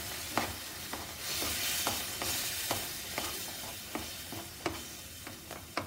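Metal spoon stirring moong dal halwa in a non-stick pan, clicking and scraping against the pan about twice a second, over a soft sizzle of the dal cooking in ghee, milk and sugar-water.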